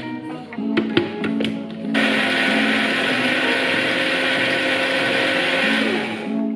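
DOMO personal bottle blender running steadily with its pulse button held down, blending chopped ingredients in liquid. It starts abruptly about two seconds in and cuts off near the end.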